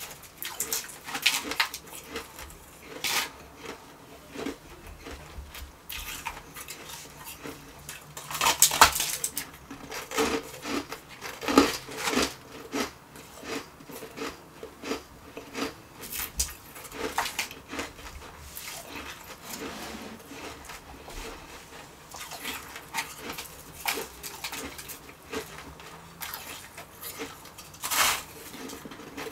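Close-miked crunching of refrozen shaved ice being bitten and chewed, in irregular crackly bites, with the ice scraping and clinking against a stainless steel bowl. The loudest crunches come about a third of the way in.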